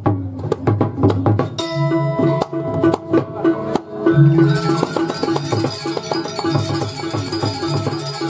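Balinese gamelan accompanying a Jauk mask dance: kendang drum strokes, joined about one and a half seconds in by ringing bronze metallophones and gongs. A bright shimmering layer comes in about four seconds in.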